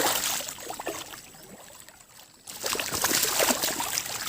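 Water splashing and sloshing in two bouts: one at the start that dies away, and another from about two and a half seconds in that stops abruptly near the end.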